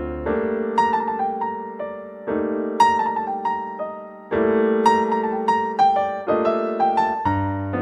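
Background piano music: a lively melody of short struck notes over held chords that change about every two seconds.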